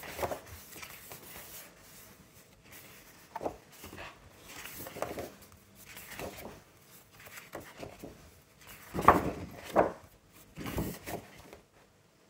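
Large sheets of scrapbook paper being turned over and slid across a table: a series of short rustles and swishes with quiet gaps between them, the two loudest about three-quarters of the way through.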